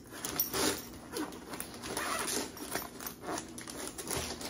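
Zipper of a soft-sided fabric pet carrier pulled open in short, uneven pulls, with rustling of the fabric and mesh as the top flap is handled.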